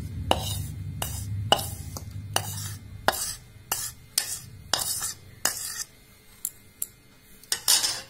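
Metal spoon tapping and scraping against the bowls while powdered sugar is emptied from one into the other. It makes a dozen or so sharp clicks at irregular spacing.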